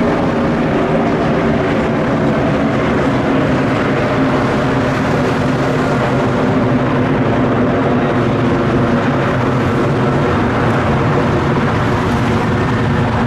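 Airbus A300 freighter's twin jet engines heard from the ground as it climbs away, a steady loud rumble with a few steady droning tones running through it.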